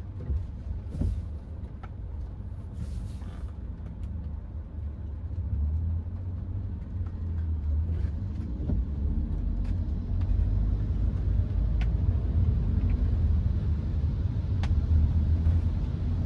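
Inside the cabin of a Hyundai HB20 with a 1.6-litre engine and automatic gearbox on the move: a low engine and road rumble that grows steadily louder as the car picks up speed.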